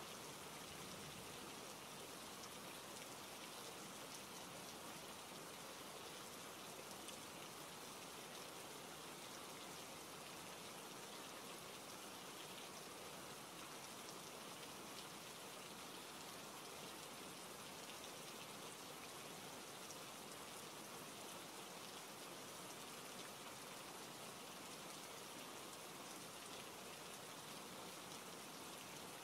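Soft, steady rain: an even wash of many raindrops that does not change.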